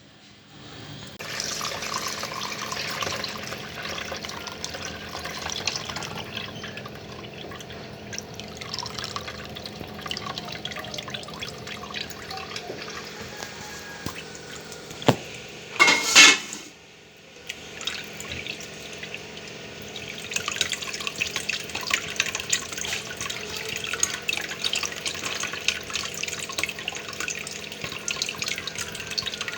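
Chicken stock being poured and trickling through a sieve, separating out the spices and bits. A sharp knock and a short clatter come about halfway through, then the trickling resumes more strongly.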